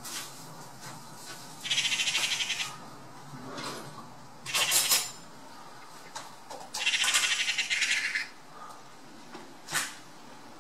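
Magpies giving harsh rattling chatter calls in four bursts, two of them rattles of about a second or more and two short sharp calls. It is the alarm chatter magpies give at a predator.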